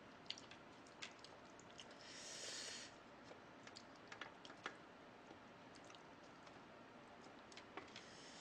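Faint eating sounds: scattered light clicks of chopsticks against a pork bone and wet squishing as meat is picked off it, with a brief soft hiss about two seconds in.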